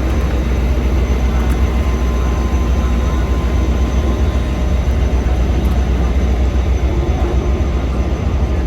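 Diesel locomotive running with a steady, loud low rumble.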